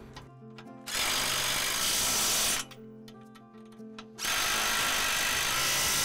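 DeWalt cordless impact driver hammering lock nuts tight on bracket bolts, in two bursts of about two seconds each with a pause between.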